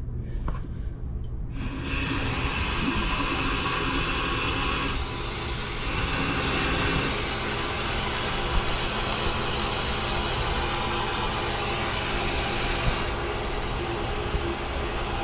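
Water rushing at full flow through the plumbing while the newly installed 50-gallon water heater fills: a steady hiss that sets in about a second and a half in.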